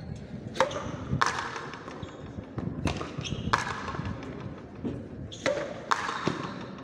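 Frontenis rally: the ball struck by racket strings and smacking against the frontón wall, sharp hits in pairs about half a second apart, three times, each ringing briefly in the court.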